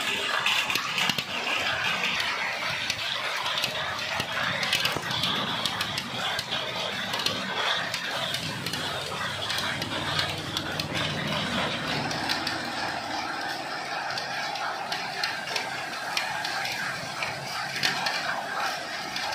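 Hailstorm: heavy rain falling with a steady hiss, dotted all through with sharp clicks of hailstones striking.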